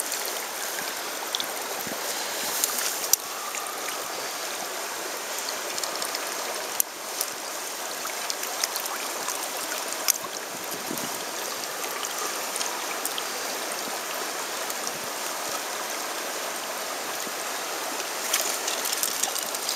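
Shallow stream water running and rippling around the landing net, a steady rushing with a few small clicks.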